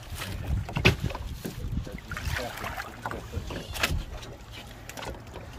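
Water splashing beside a small boat as a hooked conger eel thrashes at the surface, with sharp knocks, the loudest about a second in and another near four seconds, over a steady low rumble.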